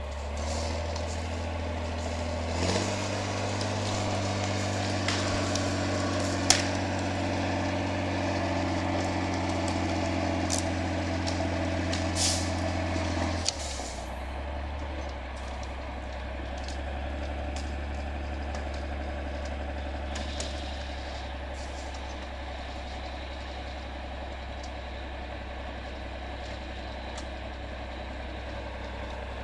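Mercedes Unimog diesel engine revved up about three seconds in and held at steady higher revs while winching in a log, with a few sharp cracks over it. About halfway through it drops back to a steady idle.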